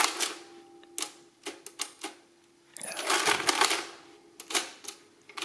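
Precisa 102-1 mechanical adding machine cycled by its hand crank: two clattering runs of the mechanism and printing heads about three seconds apart, with lighter clicks between them.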